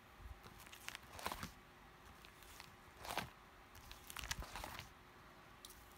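Plastic pocket pages of a trading-card binder being turned and handled, giving a few short, soft crinkles and rustles of the sleeves.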